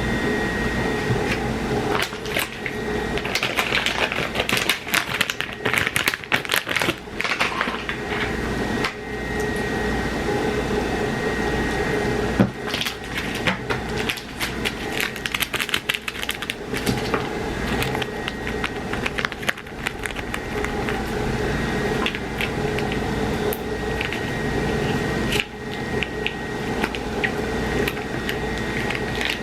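Clicks and crinkly rustling from hands handling things, thickest in two spells in the first half, over a steady low background hum.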